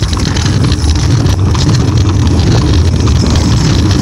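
Kick scooter rolling over rough asphalt: its small hard wheels make a loud, steady rumble.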